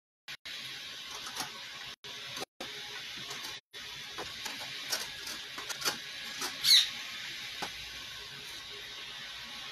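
Faint clicks and taps of hand tools and wood being handled at a workbench over a steady hiss, with one short high squeak that falls in pitch a little before the seven-second mark.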